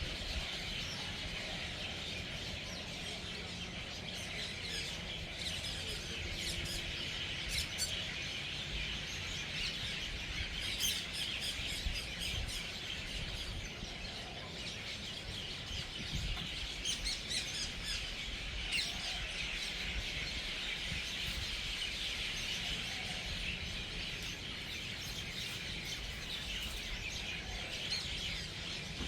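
A large flock of birds gathering to roost for the night: a dense, unbroken chorus of overlapping chirps and chattering calls, with sharper individual calls popping out now and then.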